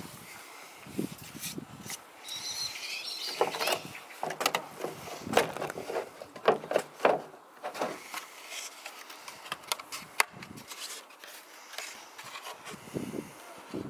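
Plywood strips and a plastic vent grille being handled on a plywood board: irregular knocks, taps and scrapes of wood on wood and plastic as the ply is pressed into the grille and lifted.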